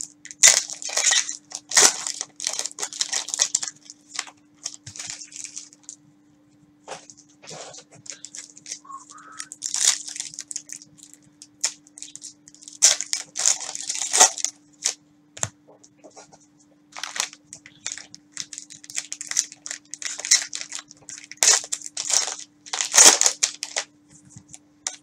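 Cellophane-wrapped trading card packs and cards handled with gloved hands: crinkling wrappers and cards sliding against each other in short, irregular bursts of rustling. A faint steady hum lies underneath.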